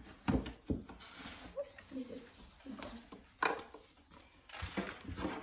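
Handling noise as a KitchenAid blender's plastic motor base is lifted out of its cardboard box and moved: a few dull knocks and rubbing of plastic against cardboard, the loudest knock about three and a half seconds in.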